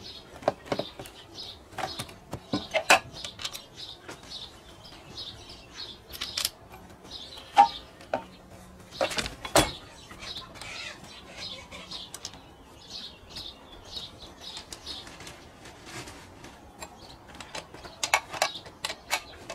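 Small birds chirping in the background, with a handful of sharp metal clicks and knocks from the Logosol Timberjig mill bracket being handled and fitted on the chainsaw bar; the chainsaw is not running.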